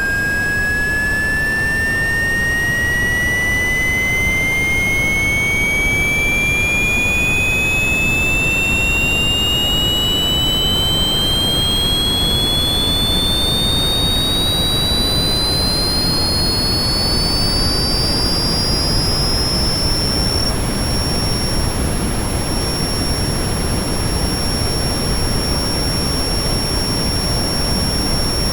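Synthesized jet-engine sound effect: deep brown-noise rumble under a high whine of pure tones. The whine rises steadily in pitch like a turbine spooling up, then holds at a steady pitch about two-thirds of the way through.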